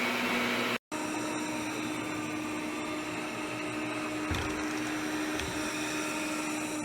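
Lubluelu L20 robot vacuum running, a steady motor hum and whine. The sound drops out for an instant just under a second in, then resumes at a slightly higher pitch.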